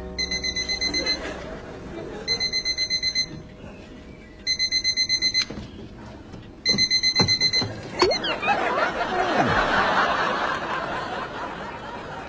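Electronic bedside alarm clock going off in four bursts of rapid high beeps, about a second each, each burst separated by a pause of a second or so. About eight seconds in there is a sharp click as the alarm is silenced, followed by a stretch of studio audience laughter.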